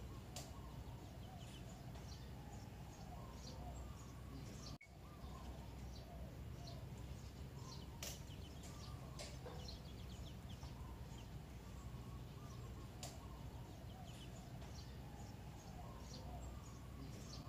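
Outdoor ambience of birds calling: many short high chirps and lower wavering calls over a steady low rumble. The sound drops out for an instant about five seconds in.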